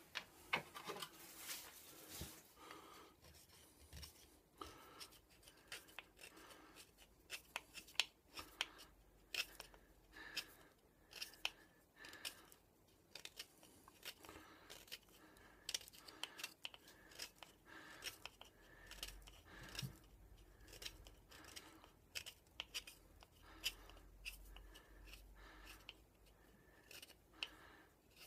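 Knife blade paring small chips off a hand-held yellow piece in a series of short, faint scraping cuts.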